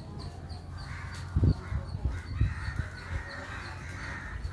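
Crows cawing, with a few dull low thumps, the loudest about a second and a half in.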